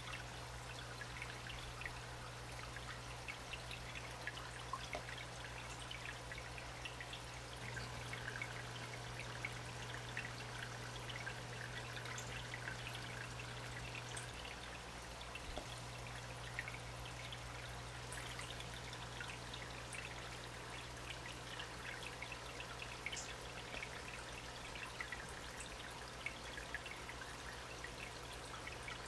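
Water pouring and trickling steadily into a filling aquarium, with many small splashes and crackles, over a constant low hum.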